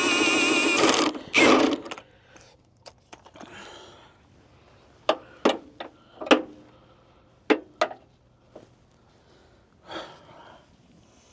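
Scattered sharp metallic clicks and clinks of a wrench working on a stuck bolt. They come singly or in pairs, several in the middle of the stretch. A loud warbling tone cuts off about a second in, followed by a short rustling burst.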